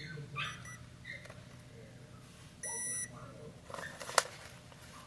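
A single electronic beep lasting about half a second, a steady high tone, followed about a second later by a sharp click.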